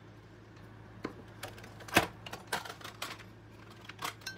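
Watercolor palette being handled and set down on the work surface: a series of light clicks and knocks, the sharpest about two seconds in.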